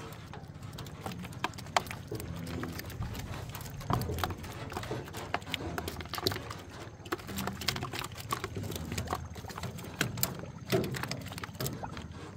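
Freshly caught fish flapping in a plastic basin and on a boat's deck: irregular wet slaps and taps, a little louder at about four seconds and near the end.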